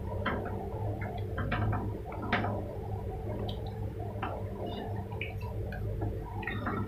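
A metal spatula stirring thick coconut-milk chicken curry in a pot, with irregular clicks and scrapes against the pot and wet squelching of the gravy, over a steady low hum.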